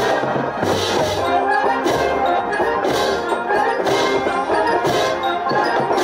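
Marching band playing: trumpets, trombones, mellophones and sousaphones holding brass chords over a sousaphone bass line, with percussion strikes about once a second.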